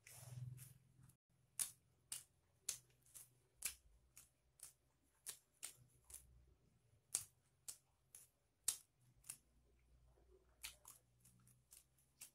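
Near silence: quiet room tone with faint, sharp clicks roughly twice a second, after a brief soft rush of noise in the first second.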